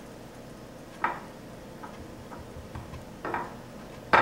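Eggplant slices being turned and pressed in a glass baking dish of flour: a few short knocks and taps, the loudest near the end.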